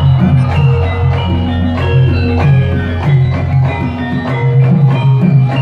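Javanese gamelan music for a lengger dance: metallophones strike a melody of ringing notes over a steady low tone, with regular drum strokes keeping the beat.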